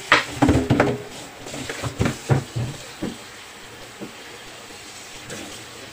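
A wooden chopping board knocks and clatters as it is handled and set down on a tiled counter, with a few more single knocks over the next couple of seconds. Water from a kitchen tap runs throughout as chicken parts are rinsed in the sink.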